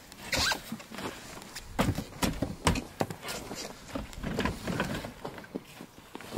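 Irregular knocks and clicks of gear being handled at a snowmobile trailer, a few sharp ones standing out among quieter rustling.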